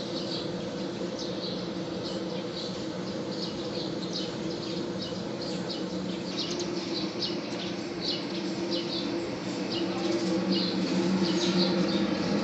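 Steady electric hum of a 20-inch automatic thickness planer running, getting louder near the end, with a stream of short high chirps over it.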